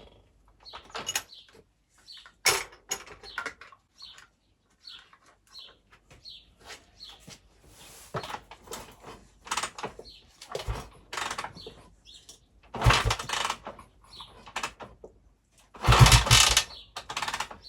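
Honda TLR200's single-cylinder four-stroke being kicked over, with two rough kick-start cranking bursts, the second one louder. The engine turns over but does not catch and run. Scattered clicks and knocks of handling the bike come between the kicks, with faint bird chirps.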